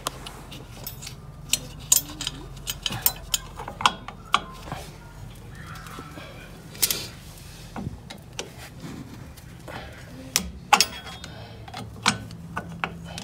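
Irregular metallic clicks and clinks of drum-brake hardware as a new brake shoe is worked onto the backing plate by hand and secured with its hold-down pin, one knock near the end louder than the rest. A faint steady low hum runs underneath.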